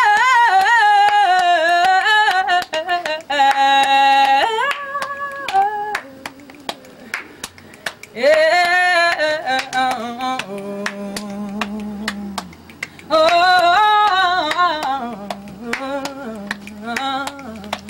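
A woman singing a Haitian traditional song a cappella in long, wavering phrases, three loud phrases with softer singing in between. Throughout, her hands slap rhythmically against her chest as body percussion.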